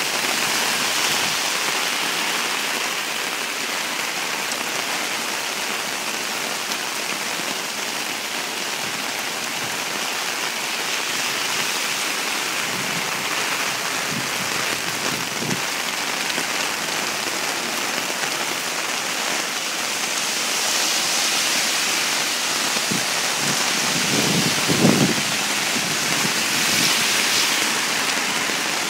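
Heavy rain pouring down onto a wet paved street and an umbrella overhead, a loud steady hiss. A few brief low knocks come through it, the loudest about three-quarters of the way in.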